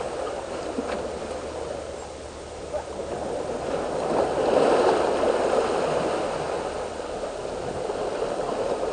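Seawater surging and gurgling through the gaps between breakwater boulders, swelling louder about four to five seconds in, then easing.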